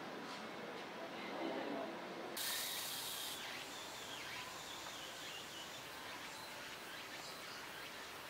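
Faint crowd chatter for about two seconds, then a sudden cut to outdoor ambience: a steady high-pitched insect drone with faint bird calls.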